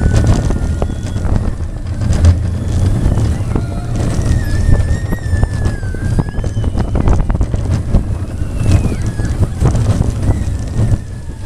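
Wind buffeting the microphone over the Barnstormer's steel roller-coaster train rumbling and clattering along its track, with a few high drawn-out squeals over it.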